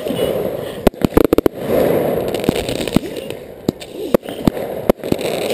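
Aerial fireworks going off at close range: a rapid string of sharp bangs about a second in, then single bangs and cracks at irregular intervals of about half a second.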